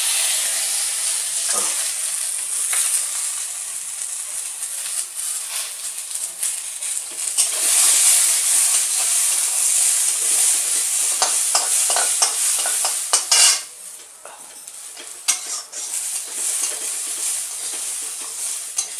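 Cashews, melon seeds and whole spices frying in a little ghee, sizzling steadily while a spatula stirs and scrapes the pan with scattered clicks. About two-thirds of the way through comes a sharp knock, and the sizzle drops quieter for a few seconds.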